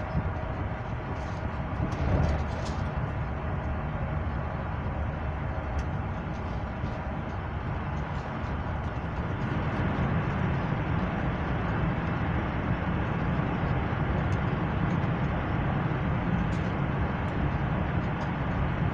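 Passenger train running at speed, heard from inside the carriage: a steady rumble of wheels on rails. About halfway through it grows louder and stays so as the train enters a tunnel.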